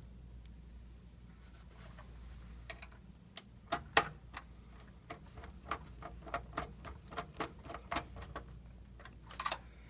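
Screw being driven down with a hand screwdriver to hold a hard drive bracket in a computer register: a run of light, irregular clicks, a few a second.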